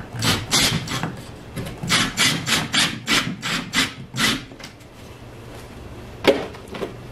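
Cordless drill driving a screw through a metal shelf bracket into the wall, in a run of short spurts, two or three a second, for about four seconds. A single sharp knock follows about six seconds in.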